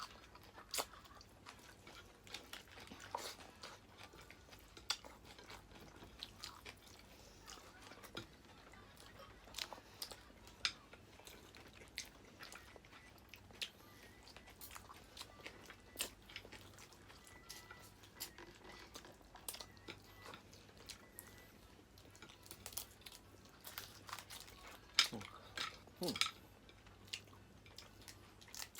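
Close-up eating sounds: chewing and crunching, with many scattered sharp clicks and cracks at no steady rhythm.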